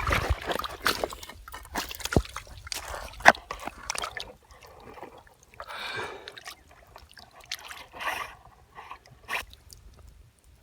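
Pond water sloshing and splashing in irregular bursts, with scattered sharp knocks, as a caught bass is handled at the water's surface to be released.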